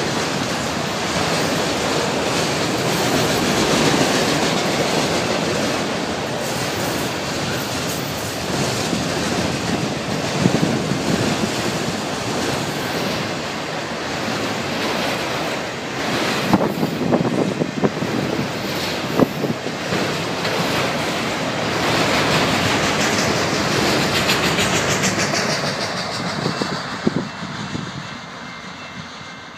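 Freight train of autorack cars rolling past at close range: a steady rumble of steel wheels on rail with clatter and several sharp clanks around the middle. The sound fades as the last car passes near the end.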